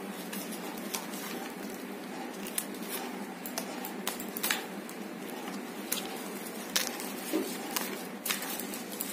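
Fresh green leaves rustling and crinkling as they are handled and laid together to make a leaf plate, with scattered sharp crackles over a faint steady hiss.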